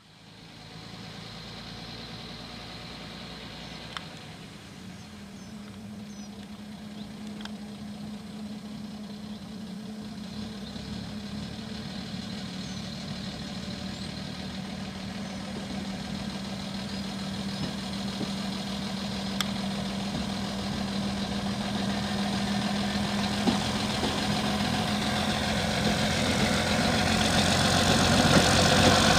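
Red vintage railbus's diesel engine running steadily as it rolls slowly toward the listener, a low hum that grows gradually louder, swelling most in the last few seconds as it draws near.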